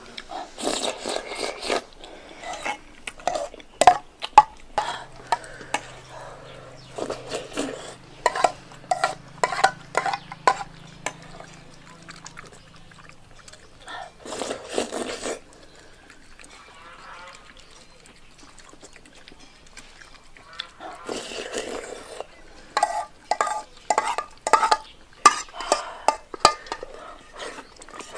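A person eating Laba rice from an enamel bowl with a metal spoon: repeated short slurps and chewing noises, with clicks of the spoon against the bowl.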